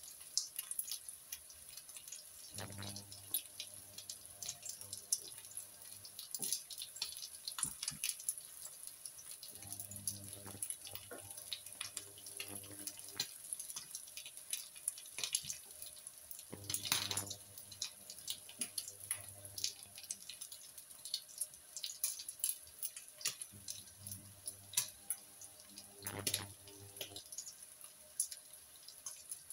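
Beef burger patties sizzling in fat in a frying pan, a steady hiss with frequent crackles and pops. A low hum comes and goes a few times.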